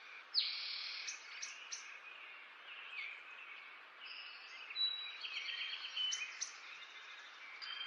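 Small birds chirping and trilling, with short sweeping calls and rapid repeated notes, over a steady background hiss.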